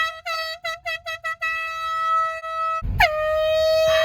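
Air horn blasting on one steady high note: a quick run of about six short toots in the first second and a half, then a long held blast, a brief break with a low thump near three seconds, and another long blast.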